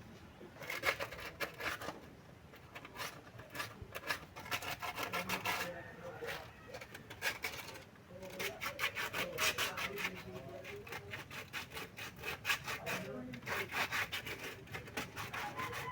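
Rapid back-and-forth scraping strokes by hand, several a second, in spells with short pauses.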